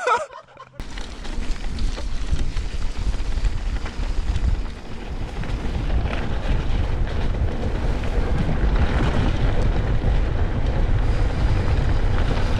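Wind buffeting the camera microphone and the rumble of a mountain bike rolling down a dirt trail, starting abruptly just under a second in and building slightly.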